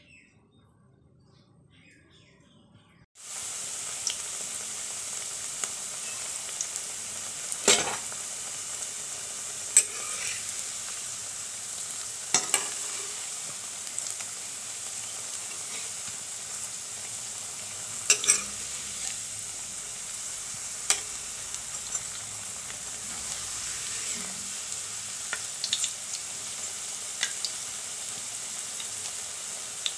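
Onion pakoras (pyaji) frying in hot oil in a metal wok: a steady sizzle that starts abruptly about three seconds in, with a metal spatula clinking against the pan now and then.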